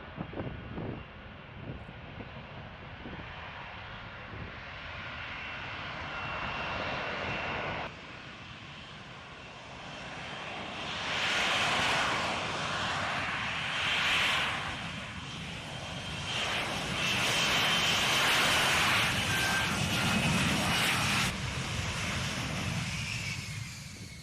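F-35B Lightning II's Pratt & Whitney F135 turbofan running, a steady high whine over a jet rush. It swells louder several times and changes abruptly twice.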